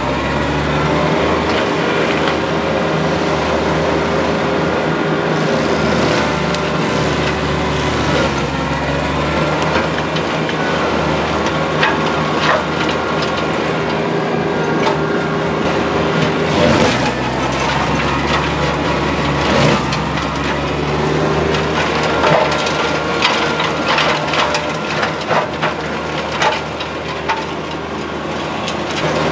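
A 25 hp TYM T25 compact tractor's diesel engine running steadily while driving a Baumalight MP348 PTO forestry mulcher, whose rotor chews through brush and small trees. Frequent sharp cracks and crunches of wood sound over the drone, more often in the second half.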